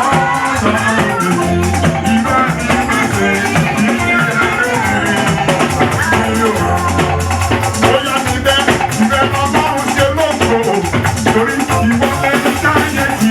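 Live church praise band playing an instrumental passage, with shakers rattling a steady beat under guitar and bass lines.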